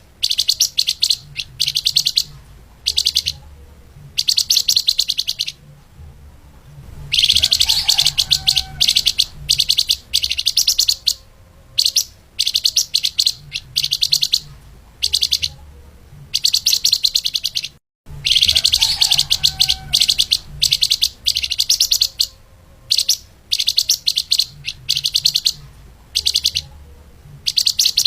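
Flamboyan (lemahan) songbird singing a fast, dense string of high chirps and trills in bursts of about half a second to two seconds, with short pauses between them. There is a brief dropout about two-thirds of the way through, and a faint low hum underneath.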